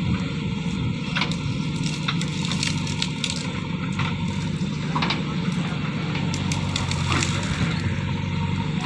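JCB 3DX backhoe loader's diesel engine running steadily, with scattered sharp cracks and crunches.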